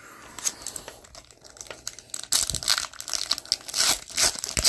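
A foil trading-card pack wrapper being torn open and crinkled by hand, in irregular crackles that grow louder about halfway through.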